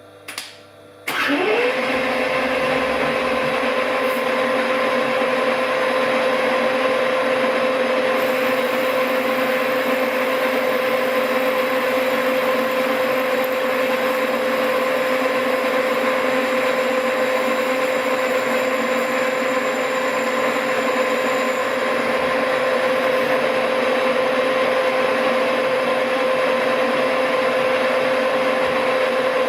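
Smart & Brown Model A lathe started up: its motor and spindle spin up quickly about a second in and then run at steady speed with a constant whine.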